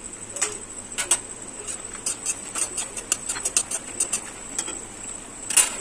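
Bori (dried lentil dumplings) frying in hot oil in an aluminium kadai, with irregular crackling pops and sputters, and a metal spatula clicking and scraping against the pan as the pieces are turned, the loudest click near the end.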